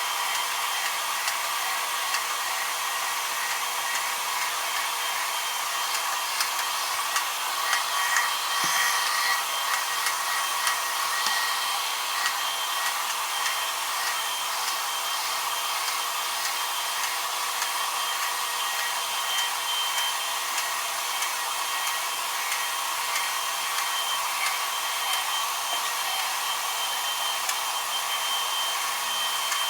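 Carpet-cleaning extraction vacuum running steadily, a constant motor whine with a hissing rush of air over it.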